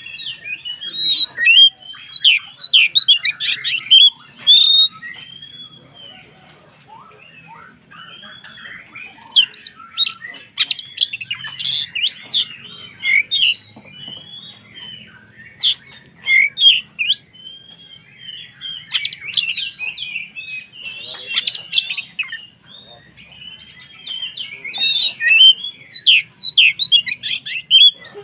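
Oriental magpie-robin (kacer) singing in full voice: loud spells of rapid, varied whistles and chattering notes, four times, with softer warbling between them.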